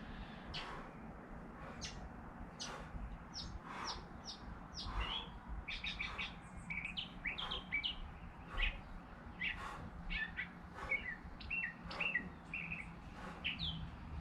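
Birds chirping, many short high chirps in quick runs, thickest in the second half, with scattered soft clicks.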